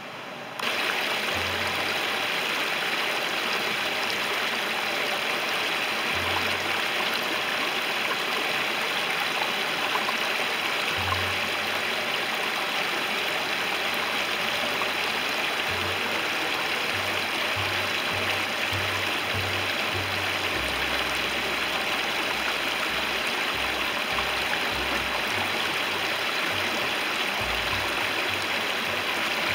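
A shallow rocky creek running over a small ledge cascade: a steady rush of water that cuts in abruptly about half a second in.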